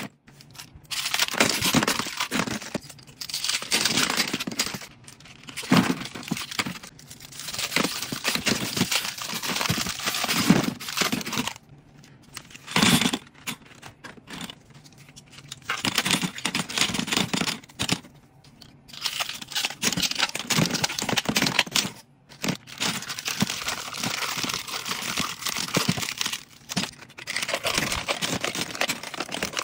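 Hands stirring through a bin full of plastic lip gloss and lipstick tubes and small packaged boxes, the tubes clattering against each other and the packaging crinkling, in spells broken by short pauses.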